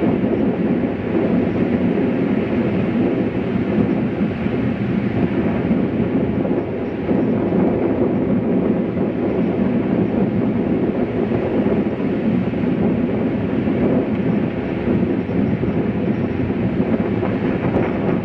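Strong wind buffeting a camcorder's microphone, giving a loud, steady noise without breaks.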